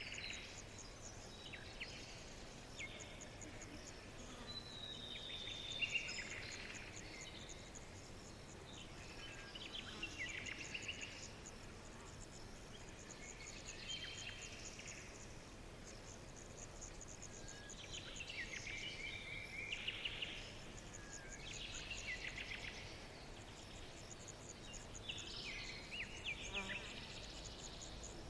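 Forest ambience: songbirds sing short phrases every few seconds over a steady, high, fast insect trill.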